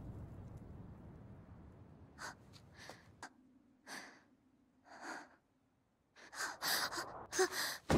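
A low rumble dies away, then a girl gasps and breathes sharply several times. Near the end comes a quicker, louder run of sharp sounds. It is anime voice acting for a startled, out-of-breath character.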